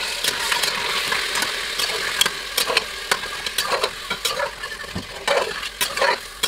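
Bone-in lamb pieces sizzling in hot oil in an open pressure cooker, stirred with a wooden spatula that clicks and scrapes against the pot many times. The meat is being roasted until the water it gives off cooks away.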